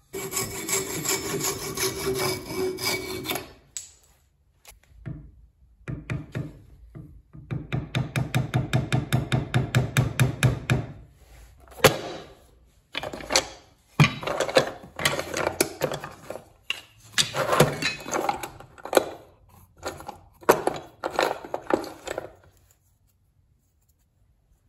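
Hand tool scraping and rasping at the wooden wedge in an axe handle's eye, in quick rhythmic strokes about three a second, then wooden offcuts knocking and rubbing together as a hand rummages through a box of scraps.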